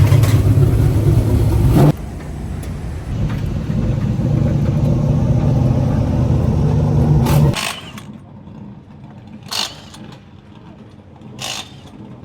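Race car engine running steadily. It drops abruptly about two seconds in, comes back, then cuts off about seven and a half seconds in. Two short sharp noises follow against a much quieter background.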